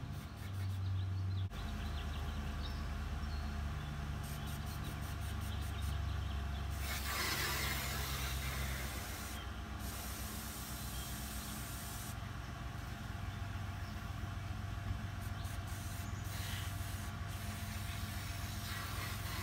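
Aerosol can of insecticide spray jetting a stream: a steady hiss that starts about a second and a half in and keeps going, thinning briefly a few times, over a steady low rumble.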